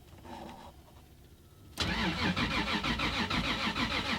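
Car engine being cranked on the starter motor: an even, pulsing churn about two seconds in that lasts roughly two and a half seconds, then cuts off abruptly without the engine catching.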